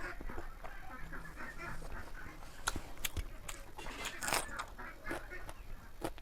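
Close-up mouth sounds of eating chicken curry: chewing and lip-smacking, with several sharp clicks.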